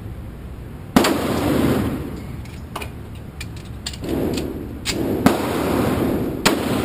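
Handgun shots at an indoor range, each followed by a short echo off the walls: one about a second in, a few small clicks in the middle, then three quicker shots near the end.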